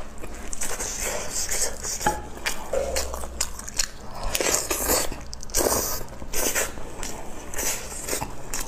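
Close-miked eating: biting into and chewing chili-coated braised meat, with wet mouth smacks and irregular clicks as it is torn and chewed.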